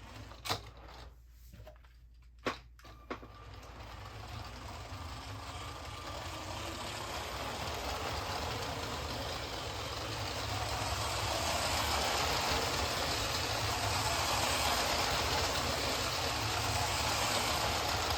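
Lego City passenger train's battery-powered motor and wheels running along plastic track at top speed. A few sharp clicks come in the first three seconds, then the running noise builds over several seconds and holds steady.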